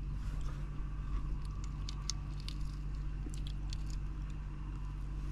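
A person eating cooked yabbies: chewing, with small scattered clicks and crackles as the shells are peeled by hand, over a steady low hum.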